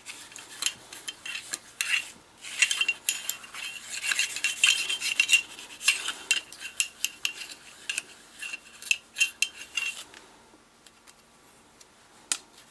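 A metal cleaning rod with a solvent-soaked swab being worked back and forth through the bore of a Ramset powder-actuated nail gun's barrel, with quick, irregular metallic clattering, scraping and clinks. It dies down about ten seconds in.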